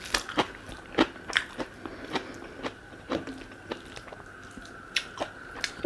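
A person eating close to the microphone: irregular wet mouth clicks and smacks of chewing and biting, a couple a second, as a mouthful of hawai thongba (pea curry) is eaten.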